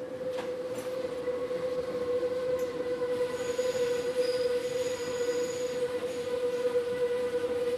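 Metro train running, heard from inside the car: the rumble of the ride under a steady whine. A faint, high wheel squeal joins in for a couple of seconds in the middle.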